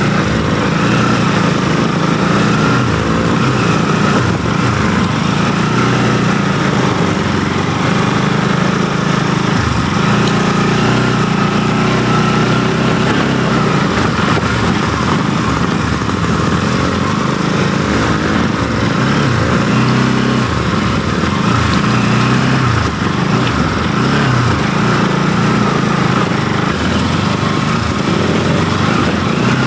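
Motorcycle engine running steadily under way at low trail speed over rough dirt, heard from the rider's own bike, with the pitch wavering a little as the throttle is worked.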